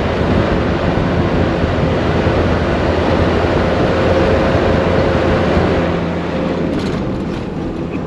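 Four-wheel drive vehicle crawling over a rough, rutted bush track: engine running with a steady drone under a broad rushing noise of tyres and suspension working over the ground.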